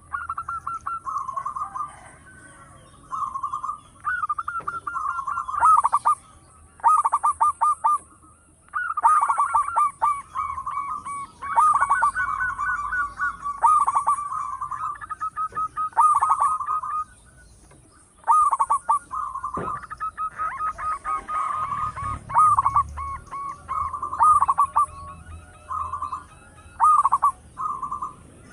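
Zebra dove (perkutut) cooing: repeated phrases of quick, rolling staccato notes, broken by short pauses.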